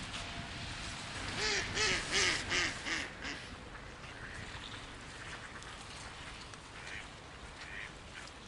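Mallard ducks quacking: a quick run of about six quacks a second or so in, then a couple of fainter calls near the end.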